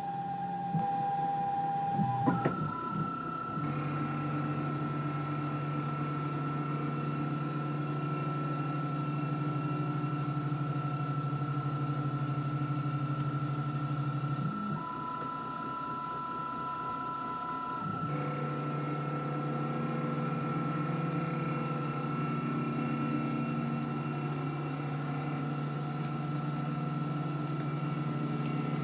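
Desktop CNC lathe turning an aluminium blank at 2000 rpm: steady whine of the spindle and feed motors as the tool takes a light 0.2 mm contour pre-cut. A few clicks come about two seconds in, and the motor tones change briefly about halfway through.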